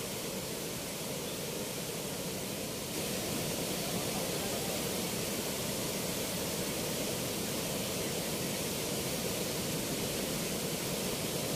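Fast, turbulent water rushing below an open weir sluice gate: a steady, even rush of churning water, a little louder from about three seconds in.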